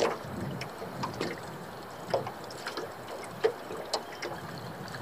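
Small waves lapping against the hull of a drifting dinghy: irregular short slaps and splashes a few times a second over a steady low wash of water.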